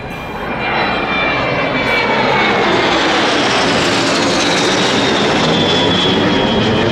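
A SIAI-Marchetti S.211 and an Aero Vodochody L-39 Albatros, two turbofan jet trainers in formation, passing overhead: jet noise swells over the first second or two and then holds loud and steady, with a high whine that slides slowly down in pitch as they go by.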